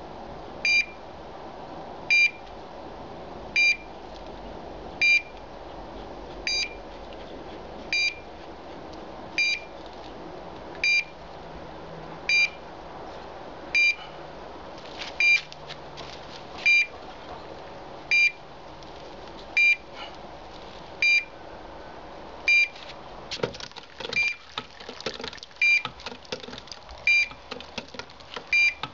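Short high electronic beeps, evenly spaced about one every second and a half, from a low-frequency pipeline-pig locator picking up the ПНТ-00 transmitter's 22 Hz signal through the steel wall of the hydrotest vessel. Near the end, a run of metallic clinks and rattles from handling the lid's chain and the pump fittings.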